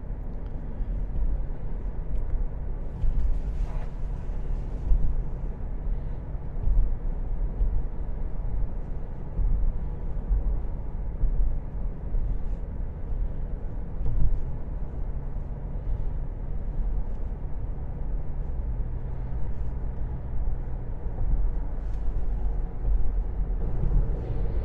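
A car driving along a highway, heard from inside the cabin: a steady low rumble of tyres and engine.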